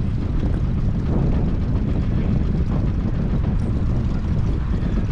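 Boat motor running steadily, a continuous low rumble with water and wind noise over it.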